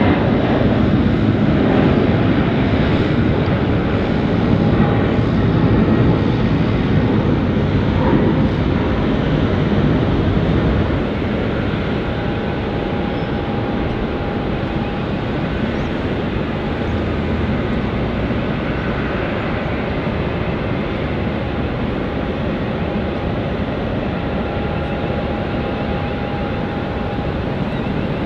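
Airliner's engines at takeoff thrust: a loud, steady roar that eases a little about ten seconds in and carries on as a lower rumble, with a faint whining tone coming and going.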